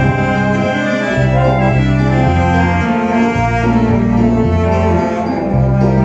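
Wind sextet of trombone, tuba, three saxophones and clarinet playing a slow piece live, with sustained bass notes stepping to a new pitch about once a second under the melody and harmony.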